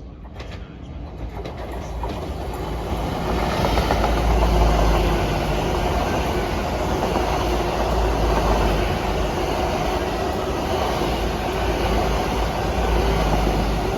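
LNER Class 800 bi-mode train passing through without stopping, running on its underfloor diesel engines: a deep rumble and the rush of wheels on rail. It builds over the first few seconds, then holds steady and eases slightly near the end.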